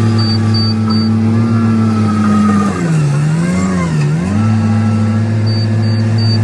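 Mini excavator's diesel engine running at a steady high speed. About halfway through, its pitch sags twice for about a second and a half as the hydraulics load it, then recovers.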